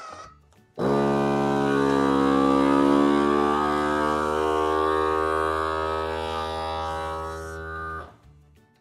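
FoodSaver V4800 vacuum sealer's pump motor starting about a second in and running with a steady hum while it draws the air out of a bag of food, its pitch drifting slightly. It stops abruptly about seven seconds later.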